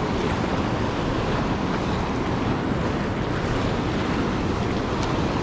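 Steady rushing noise of wind buffeting the microphone, mixed with the wash of moving river water.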